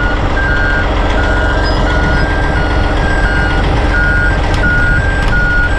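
Two-tone travel alarm on a Peterson 4710D grinder, alternating steadily between a higher and a lower pitch about every third of a second as the machine moves. Under it runs the heavy, steady rumble of the grinder's diesel engine.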